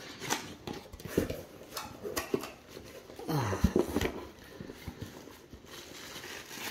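Cardboard shipping box being torn open by hand: the tear strip ripping and the flaps being pulled up, a run of rustles, scrapes and sharp knocks that is loudest around three and a half to four seconds in. Bubble wrap is handled near the end.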